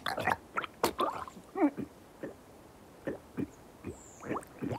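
A man with a cut throat choking and gurgling on his blood: a string of short, irregular wet gasps and gurgles with quiet gaps between.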